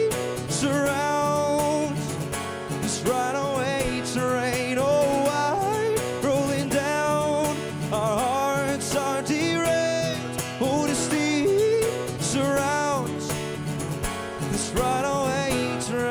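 Acoustic guitar strummed steadily, with a man singing a wordless, gliding melody over it.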